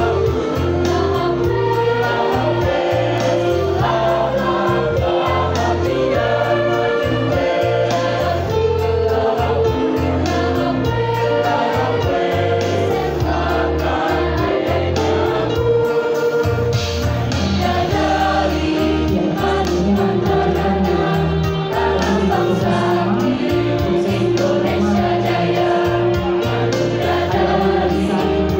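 Mixed school choir of boys and girls singing together through microphones, with sustained notes over a low bass line.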